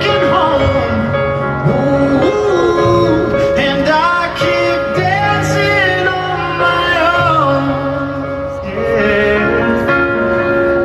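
Live slow pop ballad over a stadium PA system: a man singing a sustained, moving melody over held chords.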